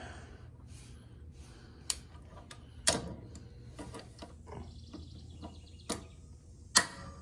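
Sharp metal clicks and knocks as a steel patch piece and a clamp are handled and set in place for tack welding, with four louder knocks and a short rattle near the middle.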